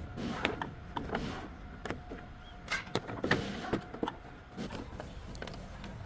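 A string of irregular sharp clicks and knocks, as of tools and metal parts being handled during drive-belt work on the engine.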